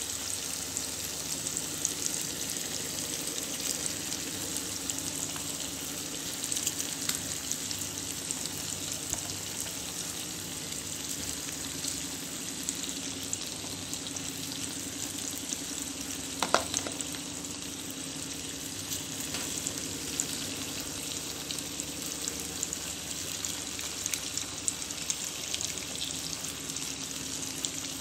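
Spiced potato masala sizzling in a kadhai while a metal spatula stirs and mashes boiled potatoes into it, with small scrapes and taps against the pan and one louder knock about halfway through.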